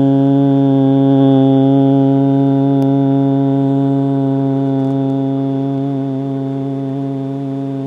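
A low voice holding one long, steady 'chooo' tone, the kidney healing sound of a Taoist breathing exercise, sustained on a single pitch and gradually getting quieter.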